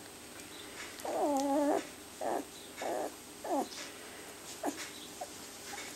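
A 13-day-old rough collie puppy whimpering: one longer, wavering whine about a second in, then five short squeaks, the last two faint.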